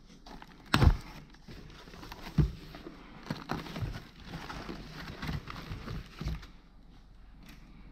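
Bubble wrap and a cardboard box being handled: plastic crinkling and rustling, with two sharp knocks, one about a second in and a louder-than-the-rest one about two and a half seconds in.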